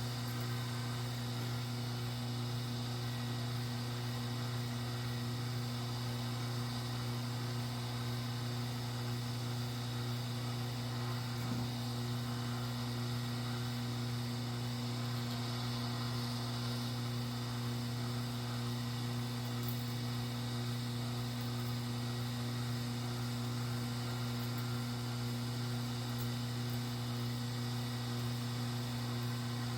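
Steady electrical hum at mains pitch with a few overtones, unchanging throughout, with one faint tap about a third of the way in.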